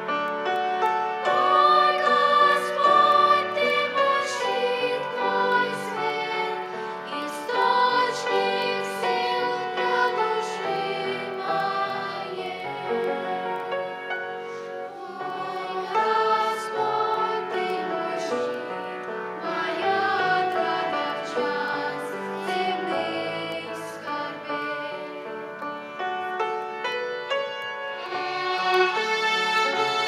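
A group of children singing a hymn together, with instrumental accompaniment. Near the end, violins come in playing.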